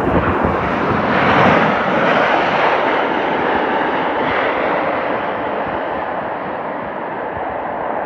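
Jet engine roar of a Boeing 737 MAX 8 airliner landing. It swells to a peak about a second and a half in, then slowly fades as the plane passes by and moves away.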